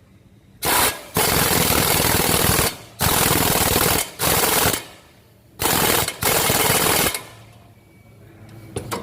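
Impact wrench run in six short bursts on a shock absorber nut, hammering rapidly during each burst with brief pauses between.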